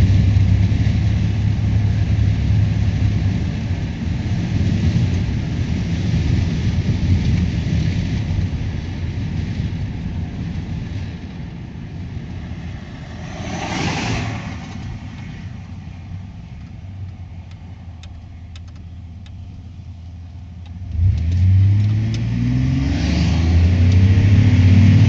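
Car engine and road noise during a test drive on a freshly rebuilt 4L60E automatic transmission. It cruises steadily, then eases off to a quieter hum, with a brief whoosh about 14 seconds in. About 21 seconds in it accelerates again, the engine pitch rising in steps.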